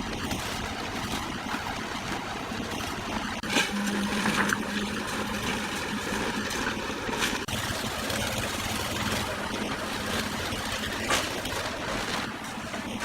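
An engine running steadily, with a few sharp knocks or clanks over it.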